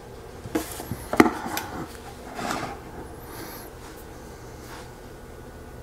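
Handling noise as an Olympus Pen EES-2 half-frame camera is moved by hand on a tabletop: a few light knocks and rubbing, the sharpest knock about a second in, then quiet room tone.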